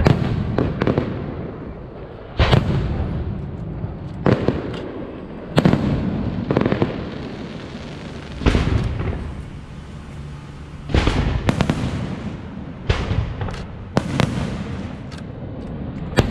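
Aerial fireworks shells bursting, about a dozen sharp bangs each trailing off in a long rumble, a few coming in quick pairs.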